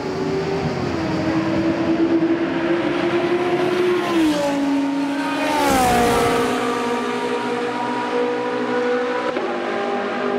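Radical SR3 race car's engine approaching and passing close by. The note steps down in pitch several times and is loudest with the sharpest drop about six seconds in as it goes past. It then holds steady as the car moves away, with a brief rise near the end.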